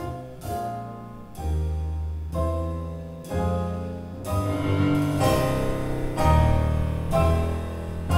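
Live jazz trio of piano, upright double bass and drum kit playing instrumental music: heavy piano chords struck about once a second over deep bass notes and cymbal hits, growing louder.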